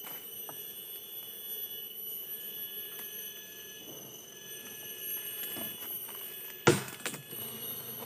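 A steady, high-pitched drone of forest insects at several pitches. About six and a half seconds in, a single sharp crack of wood as the cut panel of tree trunk is pried off, opening the wild bee nest.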